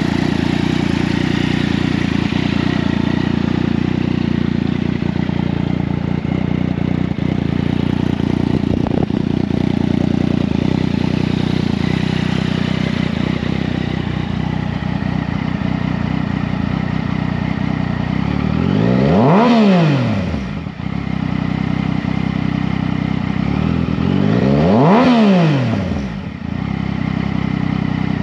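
Yamaha XSR900's 847 cc inline three-cylinder engine idling, with the throttle blipped twice, once about two-thirds of the way through and again a few seconds later; each time the revs climb quickly and drop straight back to idle.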